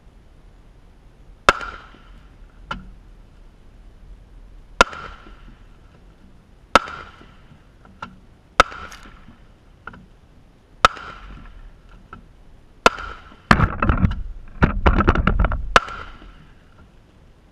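A series of about eight sharp gunshots fired at a bullet-resistant blind, one every one to two seconds, each followed by a short echo. Near the end, wind gusts rumble on the microphone as the blind flaps, with two more shots.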